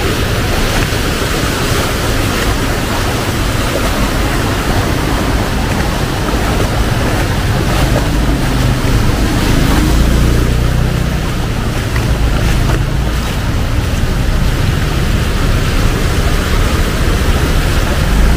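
Heavy rain pouring down on a flooded city street, a dense steady hiss, with a low rumble of traffic that swells about halfway through.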